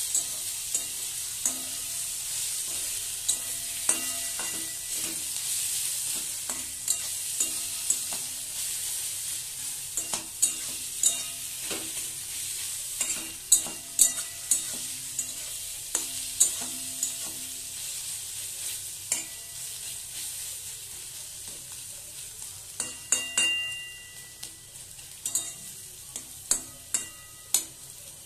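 A spatula stirring and scraping grated bottle gourd in a metal kadai while it fries with a steady sizzle. Sharp clicks and knocks of the spatula on the pan come every second or so, a few of them making the pan ring briefly. The sizzle dies down in the second half.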